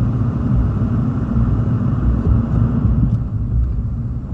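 Strong hurricane wind buffeting the microphone: a steady, loud low rumble.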